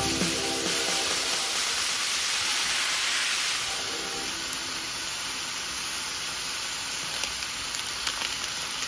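Sliced pork and leek sizzling as they stir-fry in a hot wok, a steady hiss with a few light clicks.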